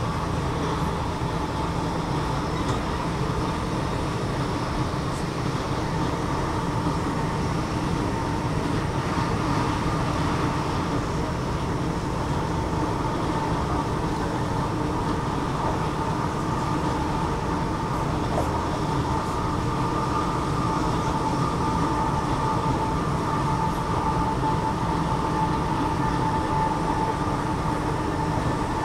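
Electric commuter train running, heard from inside the carriage: a steady rumble of wheels on rail with a steady whine that grows a little stronger in the second half.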